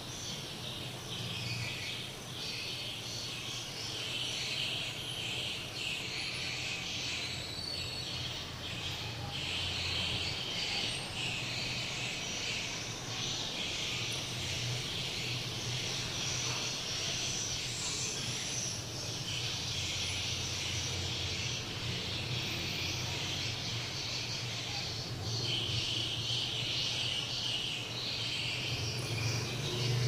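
Swiftlets twittering: a dense, steady high-pitched chirping chatter, with a low hum underneath.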